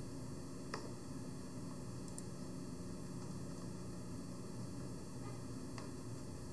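Steady hiss and low hum of room tone on the microphone, with two faint clicks, one under a second in and one near the end.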